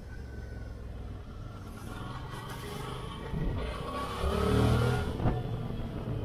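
Motor vehicle engine rising in pitch as it accelerates, loudest about four to five seconds in, over a steady low rumble.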